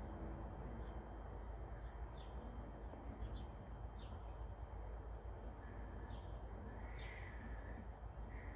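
Small birds chirping: short, quick downward chirps about once a second, with a longer held thin call in the second half, over a steady low background rumble.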